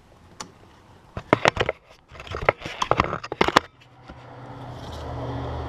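A quick run of sharp plastic clicks and scrapes as the ABS sensor wire's plastic clamp and plug are pried at, followed by a steady low hum that swells in over the last couple of seconds.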